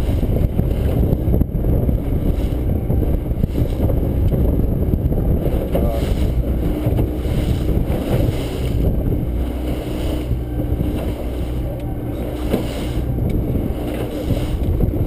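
Small fishing boat under way with its motor running through choppy water: a steady drone, with water rushing along the hull and wind buffeting the microphone.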